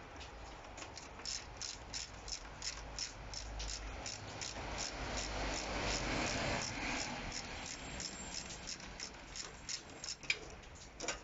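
Socket ratchet clicking in a steady rhythm, about four clicks a second, while undoing the 12 mm bolts that hold an intercooler.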